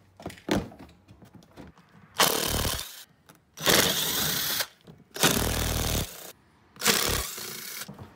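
Cordless power driver with a socket spinning in four bursts of about a second each, undoing the 10 mm fasteners of a plastic inner fender liner. A few light clicks come first, from prying out the liner's plastic pins.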